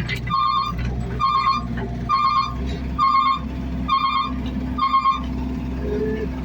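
Back-up alarm of heavy machinery beeping about once a second, six beeps, over a diesel engine running steadily; the beeping stops about five seconds in.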